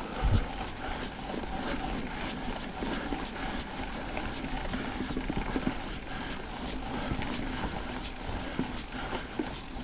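Mountain bike rolling along a dirt trail: steady tyre and trail noise with a run of light rattling clicks, and a thump about a third of a second in as the bike hits a bump.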